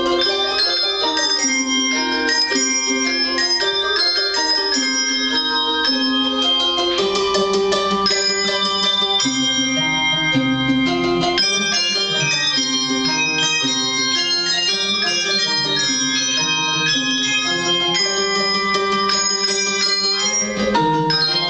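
Handbell choir playing a lively piece, many bells struck in quick succession, their notes ringing on and overlapping in chords and runs.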